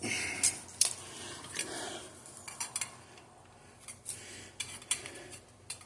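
Hand tools and engine parts clinking and scraping, metal on metal: a handful of light, irregular clinks with some rubbing in between, during work on the connecting rod bolts.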